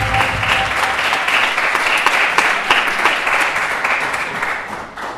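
Congregation applauding, the clapping thinning out and dying away near the end. The last held notes of a soft intro tune fade out in the first second.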